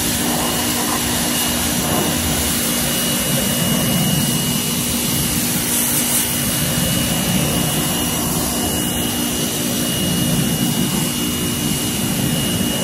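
Pressure washer running steadily: a constant motor-and-pump hum under the loud hiss of the water jet spraying a car's wheel and tyre.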